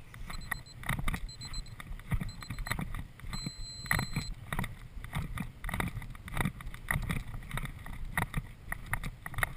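Horse cantering on grass, its hoofbeats coming in a steady rhythm of about two strides a second, with the rush of air on the microphone. Within the first few seconds, three short electronic double beeps about a second apart are followed by one longer beep.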